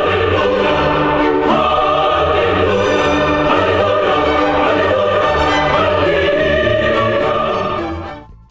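Dramatic orchestral music with a choir singing held notes, fading out near the end.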